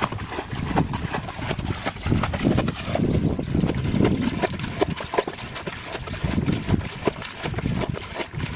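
Hands and legs splashing and sloshing in shallow muddy water while a person wades and gropes for fish, a dense, irregular run of sharp splashes and knocks.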